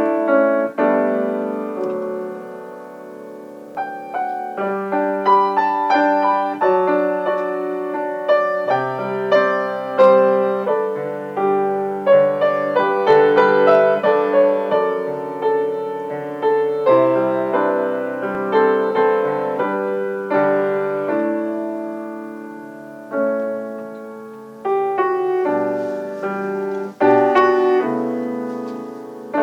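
Solo piano playing a slow prelude, chords and melody notes struck and left to ring and decay.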